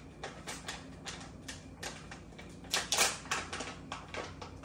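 A teaspoon scooping curing salt, scraping and clicking against a clear plastic container in an irregular string of light clicks and scrapes, busiest about three seconds in.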